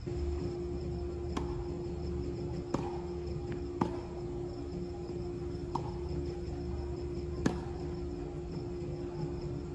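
Tennis ball struck by rackets during a doubles rally: five sharp pops a second or two apart, loudest near the middle and near the end. Under them run a steady hum and the chirping of insects.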